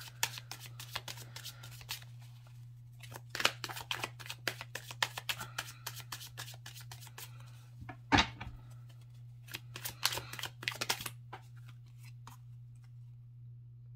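Tarot cards being shuffled by hand in several bouts of quick papery clicks, with one louder knock about eight seconds in; the shuffling dies away near the end.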